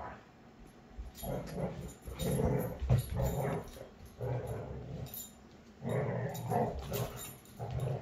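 Two beagles growling at each other in rough play, a string of short growls one after another with brief gaps between them.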